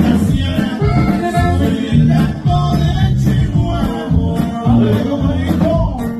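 Live norteño band music: button accordion lead over a steady bass-and-drum beat, with a man singing.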